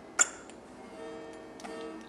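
A single sharp click about a fifth of a second in, with a smaller one near the end, over background music with steady held notes.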